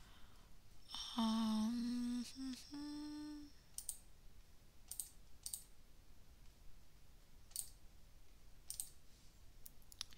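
A person humming a few short notes, with a slight step up in pitch on the last one, about a second in. Scattered single mouse clicks follow every second or so.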